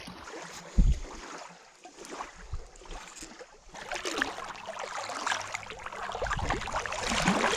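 Water splashing and lapping at the surface beside a small fishing boat, with one sharp knock about a second in. The splashing grows louder in the second half.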